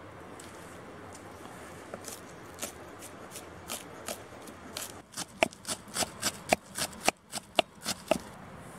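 Knife chopping fresh herbs and green onion on a wooden log-slice board: a few scattered cuts, then from about five seconds in a quick run of sharp chops, about four a second.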